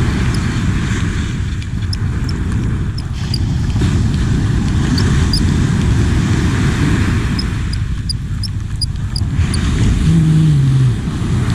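Wind buffeting the microphone over breaking surf, with faint, irregular ticking from a spinning reel being wound. A brief low hum near the end.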